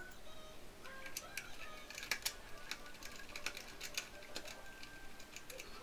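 Faint, irregular small clicks and scrapes of fingers handling a tiny terminal screw and wire on a plastic digital counter, screwing the wire back down under the screw.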